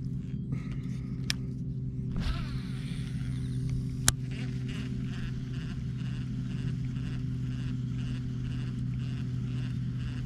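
A cast and retrieve with a fishing reel: a click, the reel's spool whirring as line pays out about two seconds in, a sharp click, then the reel cranked in a steady rhythm. A steady low engine-like hum runs underneath throughout.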